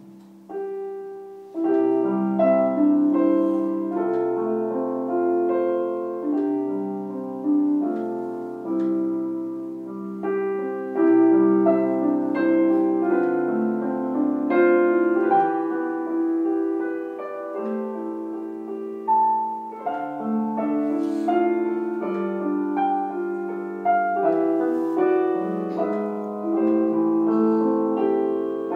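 Solo piano played slowly and calmly, with held chords under a simple melody. It starts softly, and fuller chords come in about a second and a half in.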